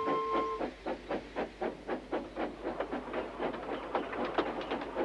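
Steam locomotive puffing along at a quick, even rhythm of chuffs with steam hiss. A held music chord cuts off about half a second in.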